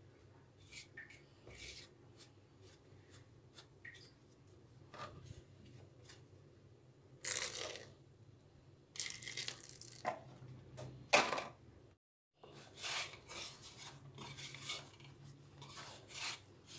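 A hand rubbing and scraping flour and oil together in a bowl, with irregular dry rustling and scraping strokes, several louder ones in the middle. After a short break, the same hand kneads the dough against the bowl.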